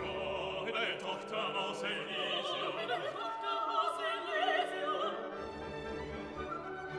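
Background music: an operatic singing voice with vibrato over an orchestra, the voice dropping out about five seconds in while strings carry on.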